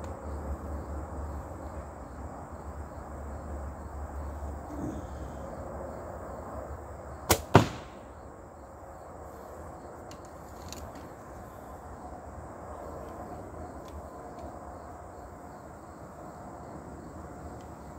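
A compound bow shot: the sharp snap of the string on release, then the arrow striking the target a third of a second later, heard as two quick cracks.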